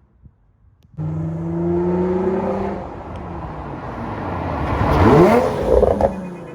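Infiniti G35's V6 with a full Motordyne exhaust at full throttle. It comes in suddenly about a second in, climbs in pitch, drops briefly at a gear change, then pulls again and gets louder as the car comes close, loudest about five seconds in, before fading.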